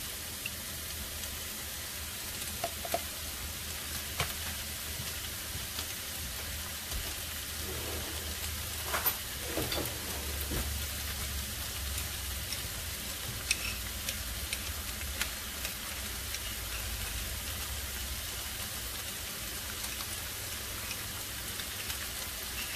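Sliced mushrooms, green bell pepper and onion sizzling steadily in a frying pan, with scattered small pops and crackles.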